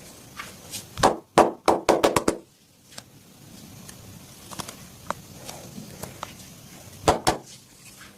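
Sharp percussive slaps of a masseur's hands striking the body in massage: a quick run of about seven about a second in, then two more near the end.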